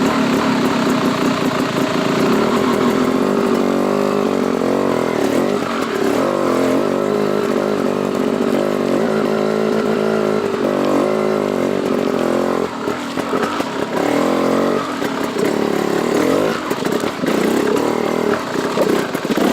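Enduro dirt bike engine running under load, its revs rising and falling as the throttle is worked. The revs become choppier, with short drops in level, for the second half.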